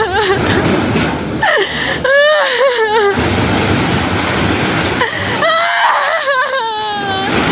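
A woman wailing and sobbing hysterically in long, high cries whose pitch wavers and falls, about three of them with short breaks between, over steady background noise.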